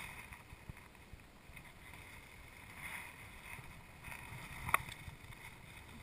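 Faint rustle and rumble of wooden beehive covers being handled and shifted, with one sharp wooden knock about three-quarters of the way through.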